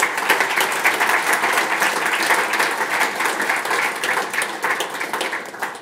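Audience applauding at the end of a talk, a dense patter of many hands clapping that dies away near the end.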